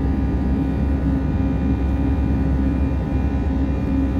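Jet airliner cabin noise in flight: a steady, deep drone of the engines and rushing air, with no let-up.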